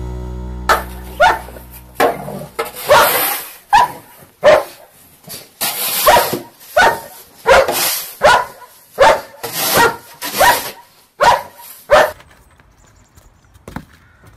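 German Shepherd barking over and over, about fifteen sharp barks roughly one every half second to second, stopping about twelve seconds in.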